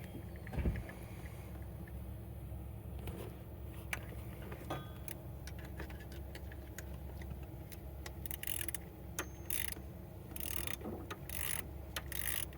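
Socket ratchet wrench clicking in several short bursts as an engine bolt is worked, being turned the loosening way. Scattered metal clinks, a knock about half a second in, and a steady low hum underneath.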